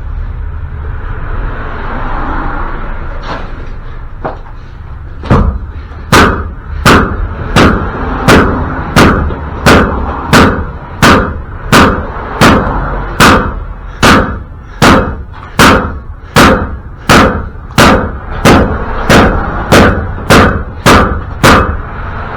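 Steady hammer blows on metal, about 25 sharp ringing strikes at roughly one every 0.7 s, coming a little faster near the end. They start about five seconds in. The hammer is working at a stuck wheel bearing and retaining ring on a pickup's axle.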